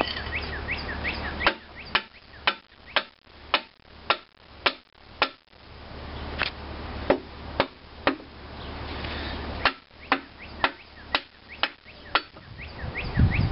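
Hammer blows on an antique stationary engine as it is knocked apart: sharp strikes about two a second, in three runs with short pauses between them.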